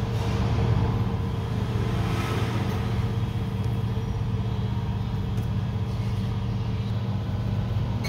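A steady low mechanical hum, even in level throughout.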